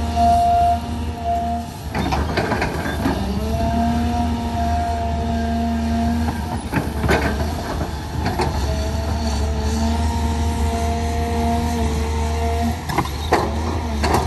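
Caterpillar hydraulic excavator working: a steady low diesel drone with a hydraulic whine that cuts out and comes back as the arm moves, one slide upward in pitch, and a few sharp knocks and cracks from the bucket working in the brush and soil.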